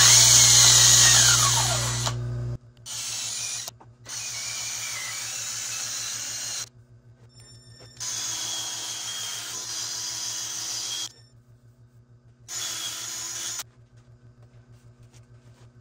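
Cordless drill spinning a buffing wheel against a burl-and-resin urn turning on a lathe: the final buffing with Triple E compound. Near the start the drill's whine falls steadily as it slows. After that it runs in several short spells separated by abrupt gaps.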